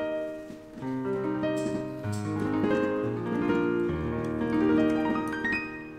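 Piano playing a flowing passage: held low bass notes under a run of higher notes.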